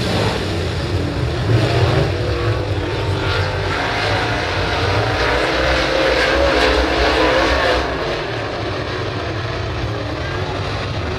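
Pack of dirt-track super late model race cars running around the oval, several V8 engines at once, their pitch rising and falling as they go through the turns; the sound eases slightly about eight seconds in.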